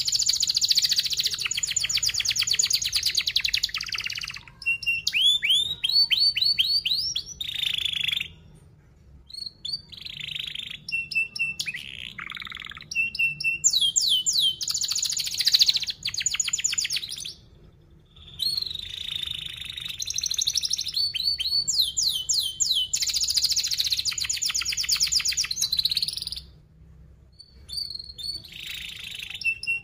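Domestic canary singing: long, loud phrases of very fast trilled notes and rising whistled notes, with a few short held notes between phrases and brief pauses about a third and two thirds of the way through.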